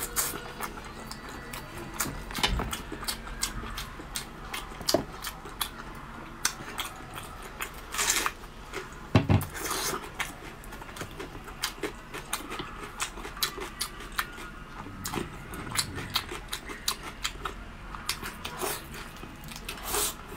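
Close-miked chewing and lip-smacking of a mouthful of meat: many irregular sharp wet clicks, with a few louder smacks about eight, nine and twenty seconds in.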